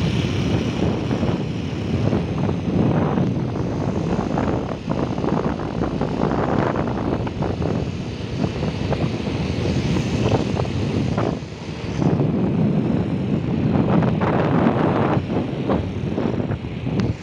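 Wind rushing over the microphone of a camera carried on a moving road vehicle, with the vehicle's engine and tyre rumble under it. The noise swells and fades unevenly and dips briefly about two-thirds of the way through.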